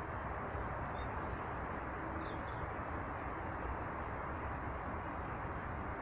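Small birds giving short, faint, high chirps now and then, over a steady rushing background noise.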